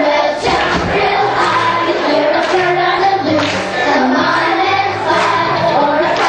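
A choir of young children singing a song together over instrumental accompaniment with a steady bass line.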